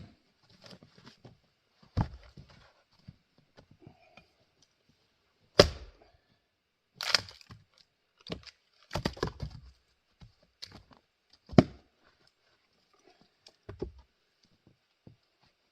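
Adirondack Jersey-pattern single-bit axe chopping and splitting grand fir rounds: about seven sharp chops a couple of seconds apart, some followed by smaller knocks and cracks of the wood.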